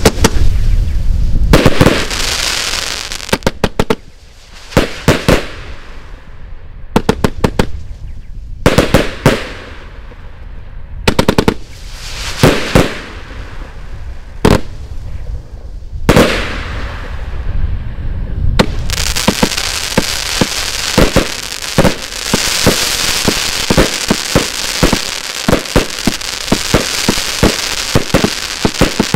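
A 100-shot 1.2-inch firework cake firing: quick volleys of sharp bangs and pops from launching and bursting shells, with short gaps between them. From about two-thirds of the way in, it turns into steady dense crackling with rapid shots on top.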